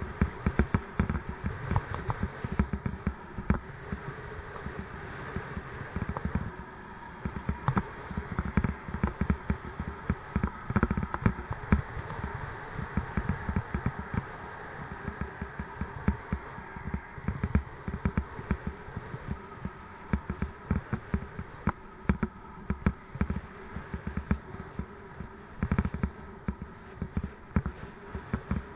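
Raleigh Mustang Elite bicycle ridden over a bumpy road surface: constant irregular rattling and knocking over a steady rolling noise.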